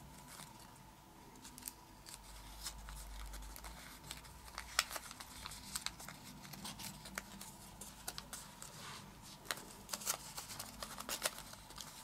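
A folded sheet of origami paper being handled and creased by hand: faint, irregular crinkling with many small crisp paper clicks.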